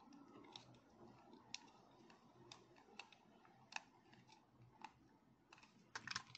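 Faint, scattered small clicks and taps of a plastic micro switch being pried open and its small parts handled, with a quick run of clicks near the end.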